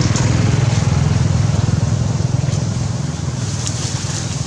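A motor vehicle engine running with a steady low rumble, loudest early on and easing slightly toward the end.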